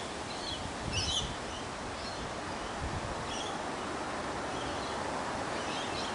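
Wind on the microphone and rustling leaves, with a couple of low gusts, and a few short, high bird chirps now and then.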